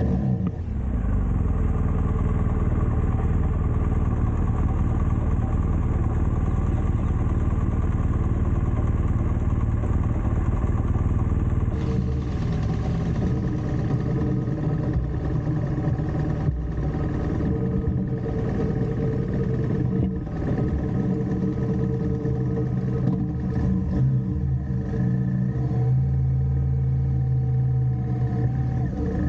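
BMW R1200GS motorcycle's boxer-twin engine running steadily, its pitch shifting a little near the start and settling into a stronger low note near the end.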